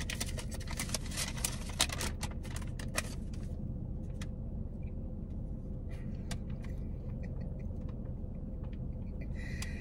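Paper crackling and rustling as a folded note is unfolded and handled, a quick run of small crackles in the first few seconds and then only scattered ticks. Under it a steady low hum inside the car.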